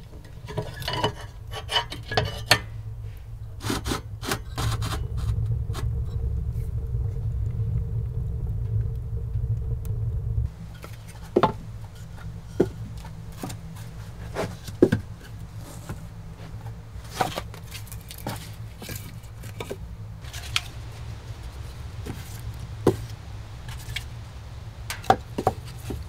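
Split firewood being handled beside a wood stove: scattered wooden knocks and scrapes, with some metallic clinks, over a low steady rumble that drops off suddenly about ten seconds in.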